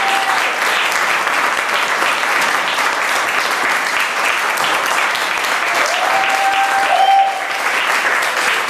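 Audience applauding steadily, with a short raised voice over the clapping about six to seven seconds in.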